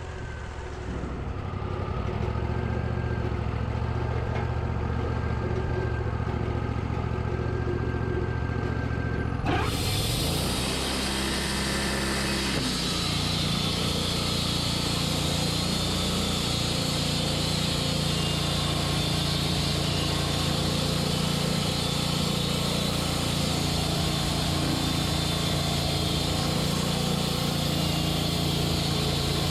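Portable sawmill's gas engine running steadily. About a third of the way in it revs up, and it then runs steady at high speed with a hiss like the blade cutting through the ash cant.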